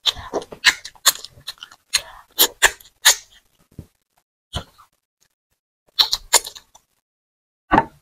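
Close-up wet eating sounds of amala and black soup eaten by hand: quick lip smacks and sticky chewing clicks. They come in a dense run for the first few seconds, then in sparser groups.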